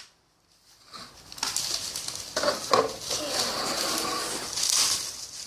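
Rustling and handling noise from a cardboard box and its wrapping, starting about a second in after a brief silence, with a few brief fragments of voice.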